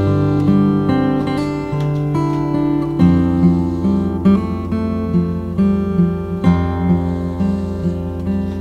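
Background music: acoustic guitar playing, its chords changing every few seconds.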